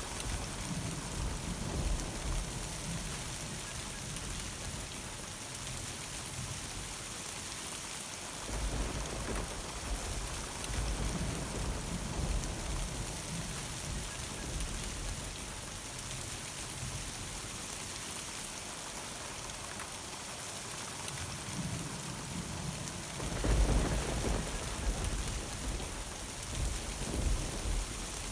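Steady heavy rain hissing on surfaces during a thunderstorm, with low rolling thunder rumbling at the start, again about nine seconds in, and loudest about twenty-three seconds in.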